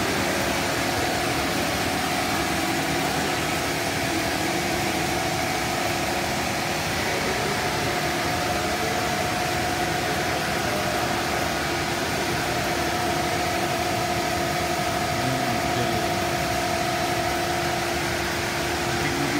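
Cast stretch film extrusion line running: a steady machine hum and hiss with a couple of held tones.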